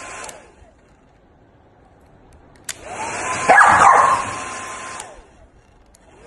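A hair dryer blowing, cut off with a click just after the start, switched on again about two and a half seconds in and off again about five seconds in. While it blows, a corgi barks and yowls at it, loudest around the middle.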